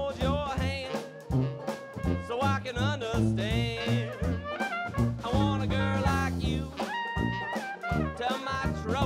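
New Orleans trad jazz band playing in swing time: a trumpet lead with wide vibrato over a sousaphone bass line, banjo strumming and a drum kit. About seven seconds in, the lead holds one long steady note.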